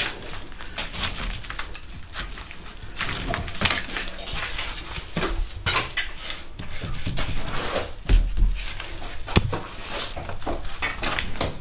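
Crumbly old brick and mortar being brushed and pulled off a half-demolished wall by hand, with loose grit and brick fragments scraping and clattering down, and a heavier low thud about eight seconds in.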